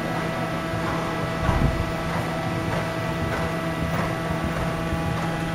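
Steady mechanical hum made of several fixed tones, with faint regular thuds about every half-second from a horse's hooves on the arena surface.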